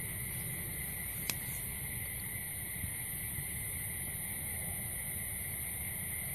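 Steady background hiss and low rumble with a constant thin high whine, and a single sharp click about a second in.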